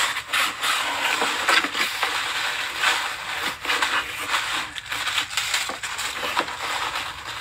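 Packaging being handled and unwrapped, crinkling and rustling in a steady run of small crackles.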